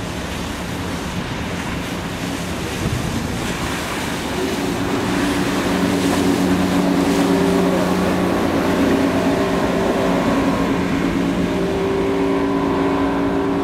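Motorboat engine running steadily with wind and water noise. About four seconds in it grows louder and a higher steady engine note joins in.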